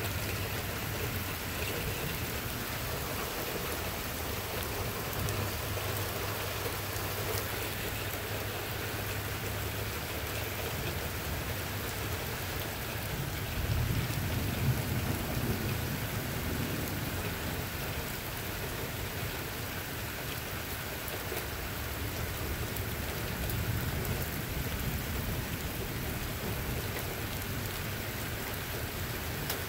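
Steady rain falling, with a low rumble of thunder swelling up about halfway through for a few seconds and a fainter rumble later on.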